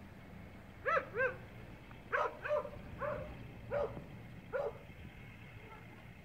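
A dog barking in the distance: about seven short barks in irregular pairs and singles, stopping after four to five seconds.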